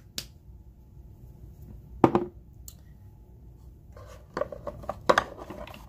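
A few sharp clicks and taps of small makeup items being handled: one near the start, one about two seconds in, and a cluster about four to five seconds in. A low steady hum runs underneath.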